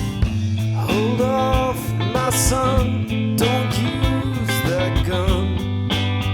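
Rock band playing: a steady drumbeat, bass and electric guitar, with a lead melody that slides and bends between notes over them.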